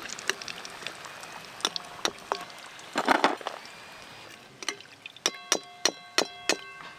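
Fish fingers deep-frying in hot oil in a metal wok, a steady sizzle with scattered clicks from a metal slotted spoon working in the pan. Near the end the spoon taps the wok about five times in quick succession, each strike ringing, as the oil is shaken off the lifted fish fingers.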